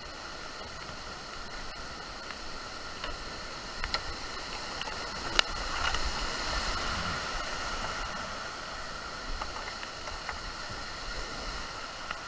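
Churning floodwater rushing through creek rapids around a whitewater canoe, a steady rush that grows louder about six seconds in as the boat runs through bigger waves. A few sharp knocks come around the middle, the loudest about five seconds in.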